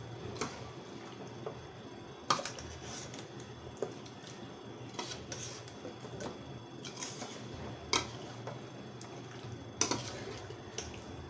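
Metal spatula scraping and knocking against a stainless-steel kadai as chicken in thick masala paste is stirred and turned, with a few sharp clanks against the pan. This is the slow low-flame sauté (kasha) of chicken in spice paste.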